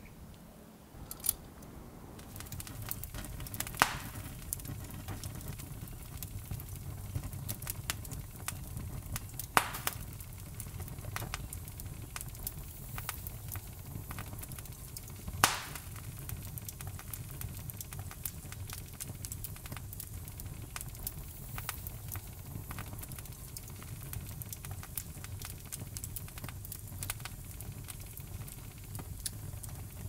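Open fire burning with a steady low rumble and dense crackling, broken by several louder pops.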